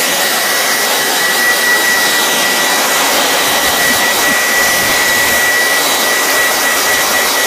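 Hand-held hair dryer running steadily on high, blowing over fresh paint to dry it: a loud, even rush of air with a thin, steady high whine.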